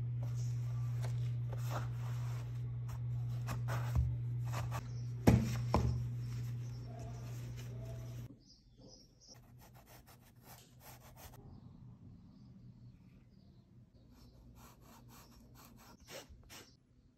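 Cloth and a stretched canvas being handled over a steady low hum, with a few knocks, the loudest about five seconds in. After a sudden drop in level, faint bursts of short strokes of a drawing or blending tool rubbing on fabric, with another cluster near the end.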